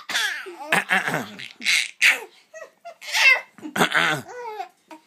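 A person coughing and laughing in a string of about six short, breathy bursts.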